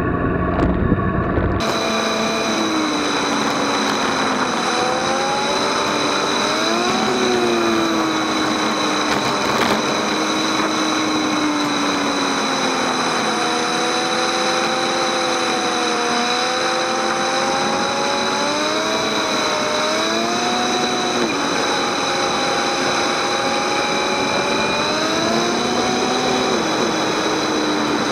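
Motorcycle engine running while riding, its pitch rising and falling repeatedly as the rider accelerates and eases off, over steady wind and road noise. It cuts in abruptly a couple of seconds in, after a short, different sound.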